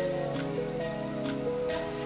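Background music: a melody over a steady light beat of about two ticks a second.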